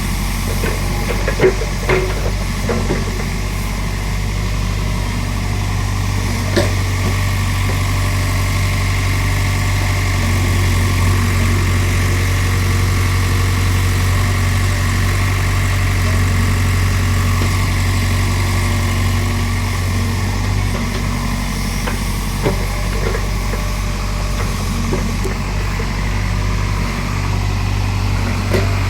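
Hydraulic excavator's diesel engine running steadily, with a few short sharp knocks, about two seconds in, near six seconds and twice more near the end.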